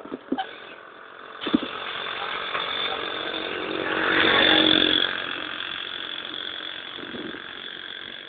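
Motorcycle-and-sidecar tricycle engine passing close by, getting louder to a peak about four seconds in and then fading away. A sharp click comes about a second and a half in.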